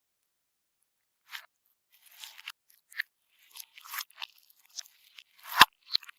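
Crunchy slime being pressed and squeezed by hand, giving a string of short crackling crunches with a sharp, louder pop near the end.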